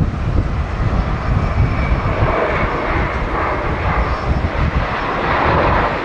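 Boeing 737-800 airliner's CFM56 turbofan engines on the landing rollout just after touchdown: a loud jet roar over a low rumble, the engine noise swelling from about two seconds in as reverse thrust builds.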